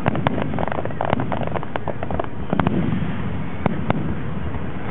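Fireworks bursting: a quick flurry of sharp cracks and pops in the first couple of seconds, then single bangs spaced further apart.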